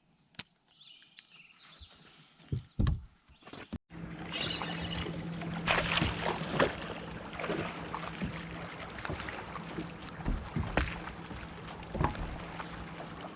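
A few knocks on a fishing boat, then from about four seconds in a steady motor hum with water and wind noise and scattered clicks.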